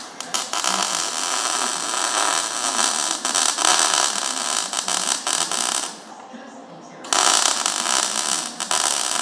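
Wire-feed (MIG) welder arc crackling as a weld bead is laid on the steel gate frame. There are two runs: one lasting about six seconds, then after a pause of about a second another begins.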